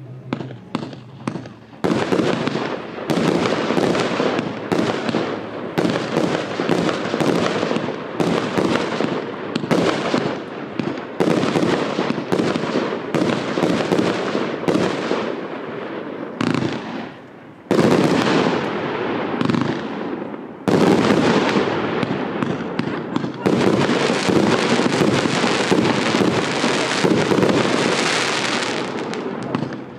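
Triplex TXB706 'Powder Play' fireworks battery, 130 shots of 20–30 mm, firing a rapid, dense stream of launches and bursting, crackling stars. The firing thins out briefly just past halfway, then comes back louder.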